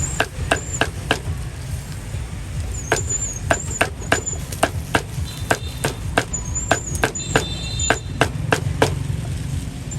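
A meat cleaver chopping repeatedly on a chopping block: sharp chops about two or three a second, with short pauses, over a steady low rumble of traffic.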